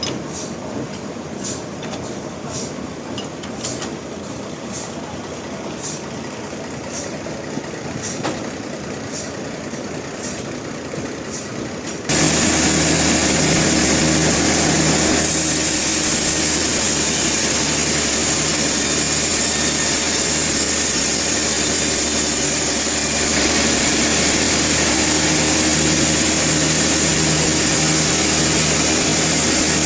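Sawmill machinery running. A steadier, quieter machine hum comes with regular clicking, then about twelve seconds in a much louder, steady engine drone with hiss cuts in suddenly. The hiss grows brighter for several seconds in the middle.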